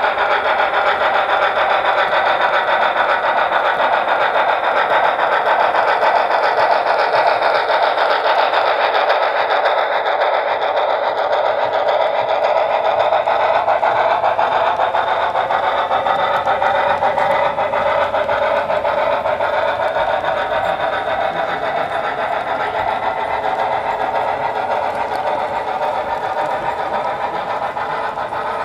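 Model freight train rolling past on the track: a steady, dense whir and rattle of the model locomotive's motor and gearing and many wheels clicking over the rails, with a slowly shifting whine, getting a little quieter in the second half as the cars go by.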